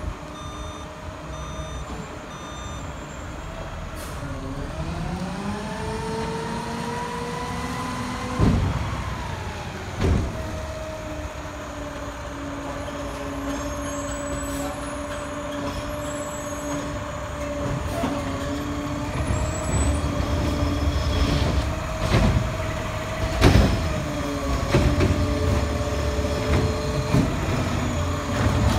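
Mack diesel garbage truck manoeuvring: its backup alarm beeps for the first few seconds, the engine revs up over a few seconds and settles back to a steady run, and sharp air-brake hisses break in several times, loudest at about eight and ten seconds in.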